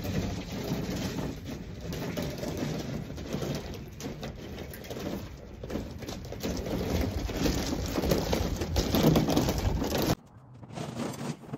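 Crunching and rattling of a lawn mower's wheels being pushed over loose rock gravel, with footsteps crunching on the stones. The sound cuts off abruptly about ten seconds in.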